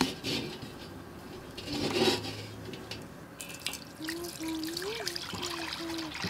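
Cooking oil poured in a steady stream into a black metal wok, trickling and splashing in the pan, starting about three and a half seconds in.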